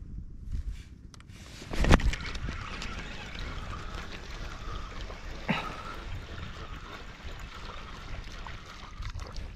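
Water splashing and trickling, with a sharp loud splash about two seconds in and a smaller one about halfway through.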